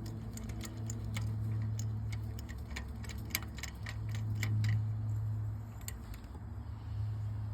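Ratchet clicking in quick irregular runs as spark plugs are unscrewed from a small three-cylinder engine, with a steady low hum underneath. The clicking thins out after about five seconds.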